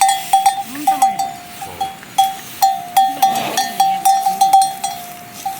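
Small livestock bells on a shepherd's flock clinking over and over at an uneven pace as the animals move, each strike ringing briefly on the same pitch.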